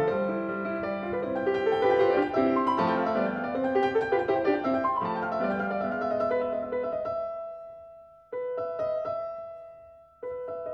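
Background piano music: a busy run of notes that thins out and fades after about seven seconds, then breaks in abruptly twice with repeated notes.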